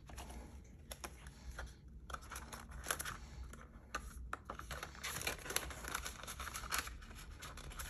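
Paper banknotes rustling and crinkling as they are handled and slid into a translucent plastic binder envelope, with irregular small clicks and taps.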